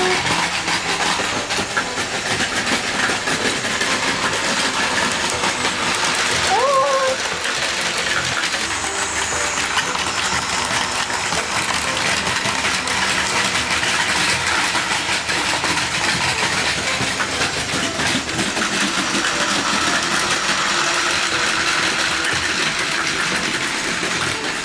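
Battery-powered Plarail Advance toy train, coupled E5 and E6 Shinkansen models, running on plastic track: a steady mechanical running noise from the motor, gears and wheels. A brief rising squeak about six and a half seconds in.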